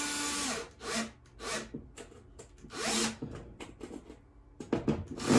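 Bosch cordless drill driver driving screws into a plywood baseboard. It runs in several short bursts: the first lasts about a second and rises in pitch as the motor spins up, and a louder burst with clicks comes near the end.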